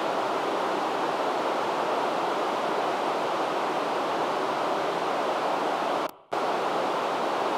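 Amateur radio receiver hissing with static on an open channel, with no voice reply coming through from the International Space Station. The hiss is loud and even, and cuts out for a moment about six seconds in before returning.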